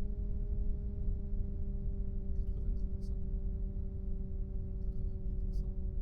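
Noctua NF-R8 80 mm computer fan running steadily: a low airy rumble with a hum of several steady tones, whose pitch sinks slightly as the fan's speed drops. A few faint high ticks come through about halfway and near the end.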